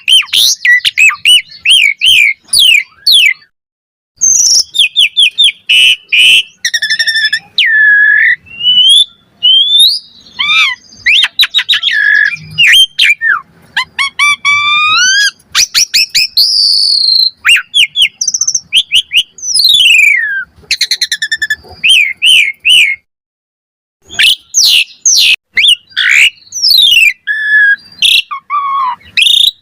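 Asian pied starling (jalak suren) singing loudly and continuously: fast runs of sharp chirps, rising and falling whistled glides and rattling trills. The song breaks off briefly a few times, once for about a second past the middle.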